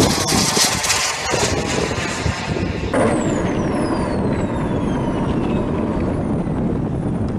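Radio-controlled model jet passing overhead with a loud rushing jet noise. About three seconds in the sound changes abruptly to the jet on the runway, its engine whine falling steadily in pitch as it winds down.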